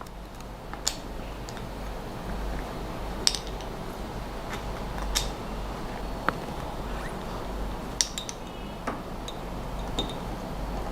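Scattered sharp metallic clicks and clinks, about seven of them, from hands working a pull-cord CO2 cartridge trigger, over a steady low hum. No gas discharge is heard.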